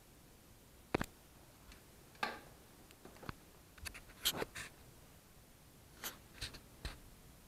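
Scattered light taps, clicks and scratches as a kitten paws and noses at a plastic box and its yellow plastic lid, with a cluster of quick taps around the middle.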